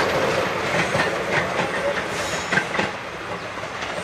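Metrorail electric commuter train running past, its wheels clicking over rail joints over a steady rumble, getting quieter about three seconds in.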